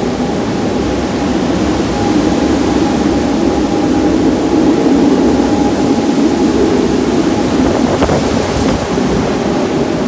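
Typhoon-force wind from Typhoon Jebi roaring through trees and around the building: a loud, continuous rush that swells a little in the middle, with a faint steady high note running under it.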